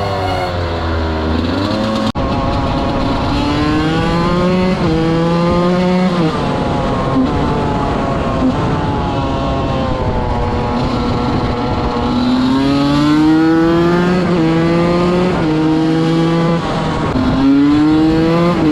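125 cc two-stroke enduro motorcycle being ridden hard: engine pitch climbs and drops sharply at each upshift, settles into a steadier stretch in the middle, then climbs through the gears again near the end.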